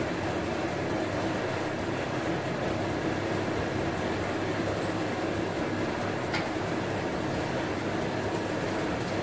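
Steady machine hum over a pan of chicken livers in spice paste cooking down as they are stirred, with one short click about six seconds in.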